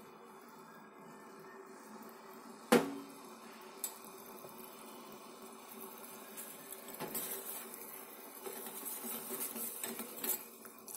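A steel spoon knocks sharply once against a steel saucepan about three seconds in, with a lighter tap a second later, over the steady sound of sugar syrup boiling on a gas burner. The syrup has not yet reached one-string consistency.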